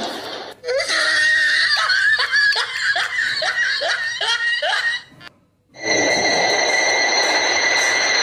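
A person laughing heartily in a run of short rising bursts, a few per second, that stops about five seconds in. After a brief gap, a steady hiss with a thin, even high whine starts.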